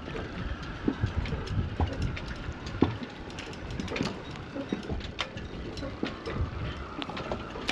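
Wind buffeting the microphone, an uneven low rumble that swells and fades, with scattered small clicks and knocks.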